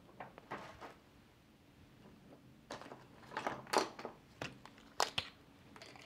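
Quiet handling noise from small electronics: USB-C cables and a power bank being plugged into an audio adapter, with scattered clicks and rustles, a busier patch in the middle and two sharp clicks near the end.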